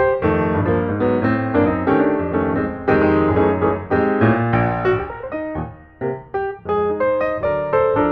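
Background piano music, notes and chords played in a steady flow with some quicker single notes near the end.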